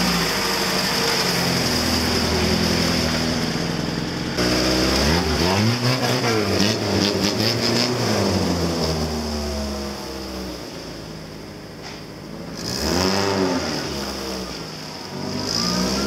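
Lada Niva's four-cylinder engine driving off-road. The note is steadier for the first four seconds, then revs up and falls back several times as it pulls through the mud.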